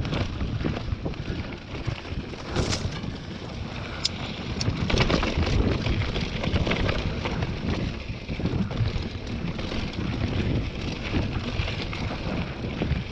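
Mountain bike riding down a dry dirt and gravel trail: wind buffeting the camera microphone over the rumble of tyres on loose ground, with sharp clattering knocks from the bike over bumps, thickest a few seconds in.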